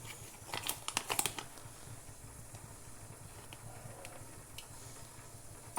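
Light clicks and crinkling as a spoon and container are handled to add desi ghee to a preheated pan, clustered about a second in, then a faint steady hiss with a couple of soft ticks.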